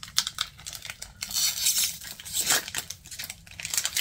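Foil booster pack wrapper of Pokémon cards crinkling and tearing as it is opened and handled, with many sharp crackles and stretches of hissy rustling.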